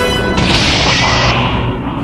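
Anime sound effects over music: a sudden loud crash about half a second in that cuts off abruptly near the middle, leaving a low rumble that fades toward the end.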